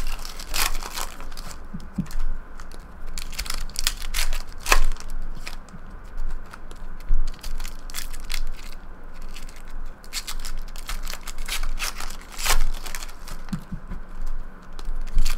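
Foil wrappers of SP Authentic hockey card packs crinkling and tearing as they are opened by hand, in an irregular run of crisp crackles and rips, with cards handled and stacked between them.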